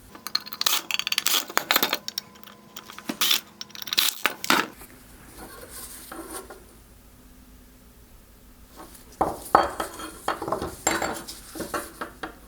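Clicks, clinks and rattles of a screwdriver, small Phillips screws and hard parts being handled as a 2015-2017 Nissan Juke halogen headlight projector is unscrewed and taken apart. The noise comes in busy clusters of sharp clicks with a quieter stretch in the middle.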